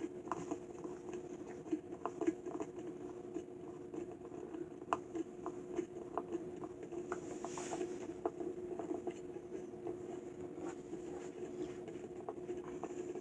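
Table leg being twisted by hand onto a metal screw: a string of light, irregular clicks and scrapes over a steady low hum.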